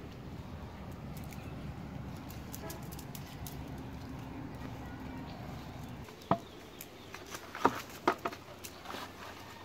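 Rustling of a cast net on dry leaves as fish are picked out of it, then several sharp knocks from about six seconds in as fish are put into a plastic bucket.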